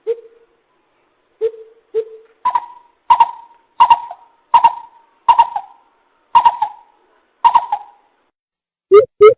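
Coucal (bìm bịp) lure call: three low hoots, then a steady series of about eight higher, echoing notes spaced under a second apart, breaking into a quick run of low notes near the end.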